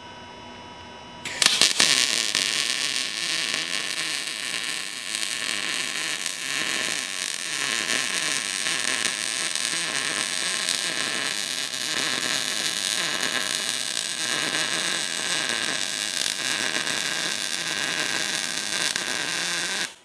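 MIG welder arc crackling and hissing as one long continuous bead is run to build up metal on a steel part. It starts about a second in and cuts off sharply at the end.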